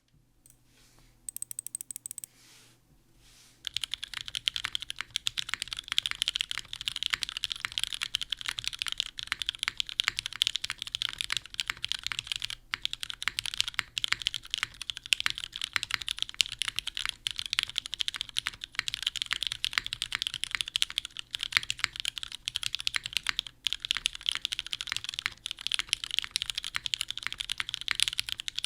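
Continuous fast typing on a Cruel World 88 mechanical keyboard with lubed Cherry MX Nixie switches, a polycarbonate plate and GMK keycaps: a dense, even clatter of keystrokes that starts about four seconds in.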